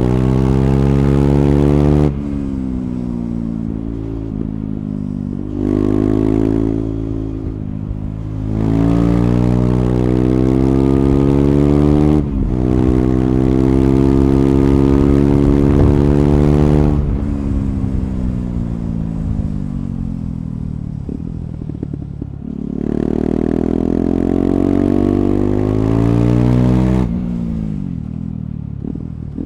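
KTM Duke 390's single-cylinder engine through an Akrapovic slip-on exhaust, ridden hard. Revs climb in several full-throttle pulls, with the throttle snapped shut between them and a quick upshift partway through. Twice the revs wind down for several seconds on engine braking.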